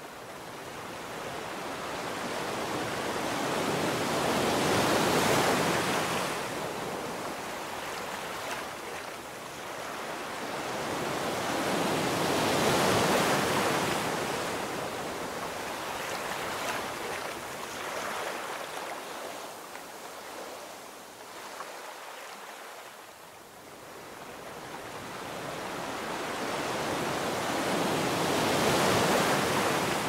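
Sea waves breaking and washing up a sandy beach: three slow surges of surf, each swelling up and falling away again.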